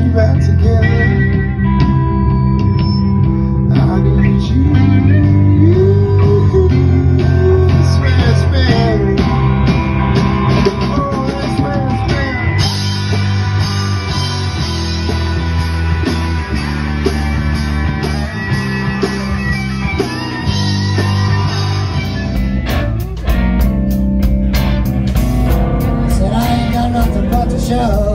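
A small rock band playing live: electric guitars over electric bass and drums. About three quarters of the way through, the sound changes abruptly to a fuller section with harder, more frequent drum hits.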